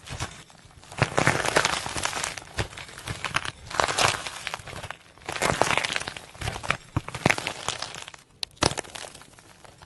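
Slime being squeezed and worked by hand, crackling and popping in repeated bouts of dense little clicks.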